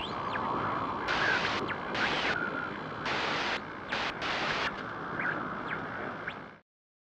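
Logo-intro sound effect: a hiss of noise left over from the opening boom, with a few short rising chirps and several brief blocks of crackly glitch static, stopping abruptly about six and a half seconds in.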